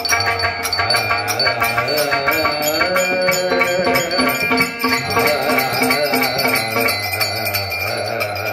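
Devotional bhajan music: a man sings into a microphone over a droning harmonium and tabla, with small hand cymbals clinking in a steady rhythm.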